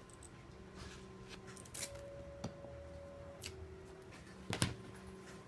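Hand work with double-sided tape on a roller banner graphic: four short sharp clicks about a second apart, over a faint steady hum.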